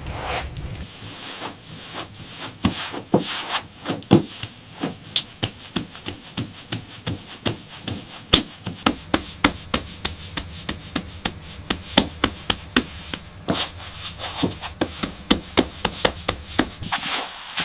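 A long series of short, sharp knocks, two or three a second, with rubbing or scraping noise between them.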